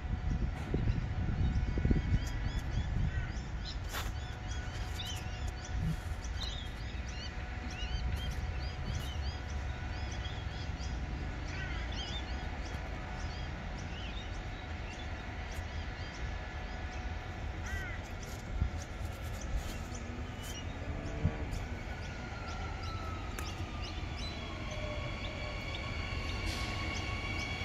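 Small birds chirping over steady outdoor background noise, then a Queensland Rail electric multiple-unit train pulling into the platform: a falling electric whine as it slows, settling into several steady high-pitched tones near the end.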